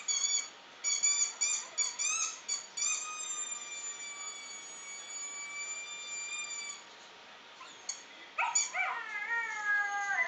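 Small dog whining and whimpering in high-pitched cries, played through a laptop's speakers: a run of short whines, then one long held whine, then lower, wavering cries near the end.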